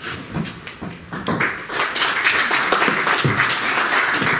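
Audience applauding, picking up to full strength about a second in.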